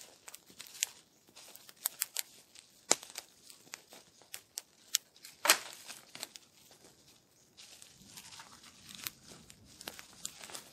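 Tent fabric rustling and crinkling as it is shaken out and spread over snowy ground, with irregular sharp crackles, the loudest about halfway through.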